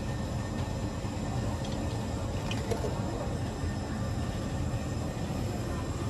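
Steady low rumble and hiss of background noise in a supermarket aisle, with a few faint clicks near the middle.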